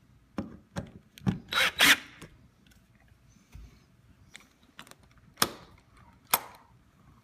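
Deadbolt mounting hardware being tightened back up by hand while fitting a smart lock: a string of sharp metallic clicks and knocks, with a short scraping rasp a little under two seconds in and a few more widely spaced clicks near the end.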